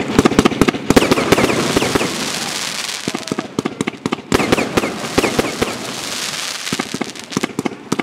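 Fireworks display firing: rapid volleys of sharp bangs and crackling as shots launch and burst. The bangs are densest in the first second and again around three to four seconds in.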